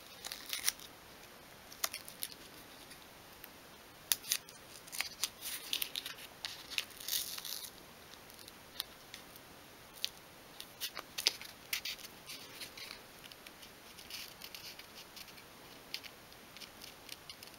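Paper masking tape crackling and rustling as strips are pressed and smoothed onto a small wooden model boat hull, in scattered short crackles and clicks with brief pauses between.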